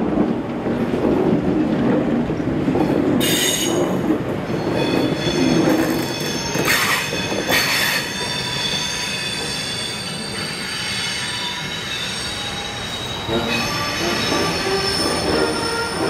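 Heritage red electric suburban train running along the track, its wheels rumbling, then squealing in several high steady tones from about three seconds in, with a few brief louder screeches between about three and eight seconds.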